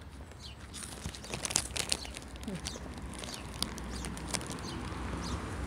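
Chewing crunchy Cheetos close to the microphone: a quick run of crisp crunches, densest in the middle, over a steady low rumble.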